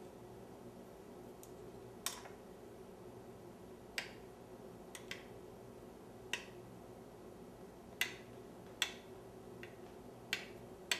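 A spoon clicking against the side of a bowl as yogurt is stirred with sugar and salt: about ten sharp, irregular clicks roughly a second apart, over a faint steady hum.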